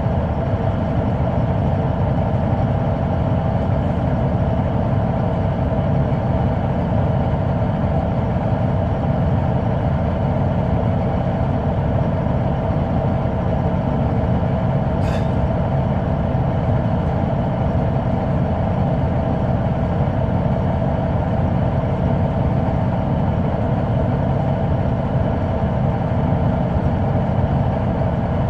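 Caterpillar C9 ACERT diesel engine of a 2004 Neoplan AN459 articulated transit bus running steadily, heard from inside the bus, with a constant tone over the low engine drone. A brief sharp click about halfway through.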